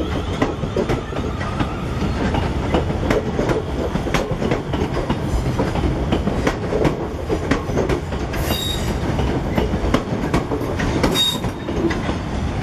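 South Western Railway Class 444 electric multiple unit running out of the station, its wheels clattering over points and rail joints in a string of knocks. Two brief high squeals break in past the middle, typical of wheel flanges on the curved pointwork.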